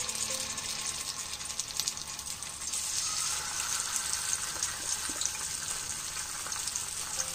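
Cornflour-coated tilapia frying in hot oil in a frying pan: a steady sizzle full of small crackles. The sizzle grows louder about three seconds in, as another fish goes into the oil.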